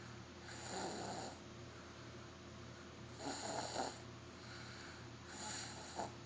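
Snoring while asleep: three drawn-out snore breaths, one about every two and a half seconds.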